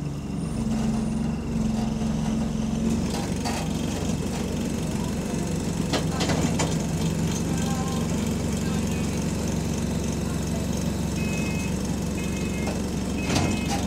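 Bus engine droning steadily while the bus moves slowly, heard from inside the saloon, with a few brief knocks and rattles from the bodywork. Short high beeps come repeatedly near the end.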